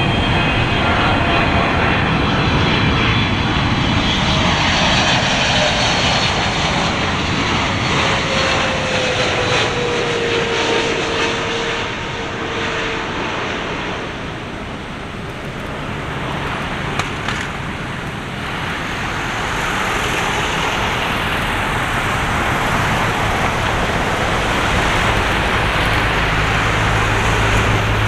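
Boeing 777-300ER's twin GE90 turbofans passing on landing: loud jet noise with a whine that slides down in pitch, easing off around the middle, then building up again toward the end.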